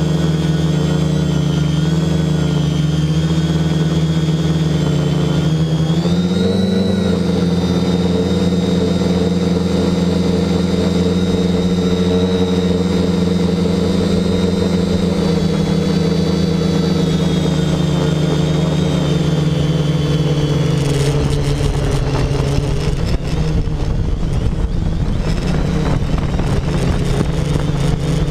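X525 quadcopter's four 1000kv brushless outrunner motors spinning 10x4.5 props in flight, a steady multi-toned hum. The pitch rises briefly about six seconds in as the throttle changes, and from about three-quarters of the way through, wind rumble on the microphone joins it.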